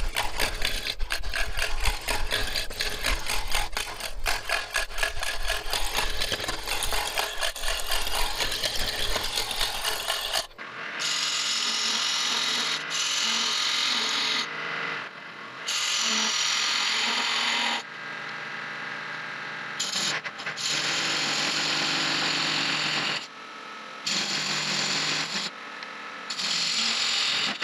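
Wood lathe turning a wooden blank with a gouge. For about ten seconds the tool strikes the off-center multi-axis blank in a rapid, rhythmic clatter, the sound of an interrupted cut. Then, after an abrupt change, the gouge shaves the round spindle in repeated hissing cuts a few seconds long that stop and start.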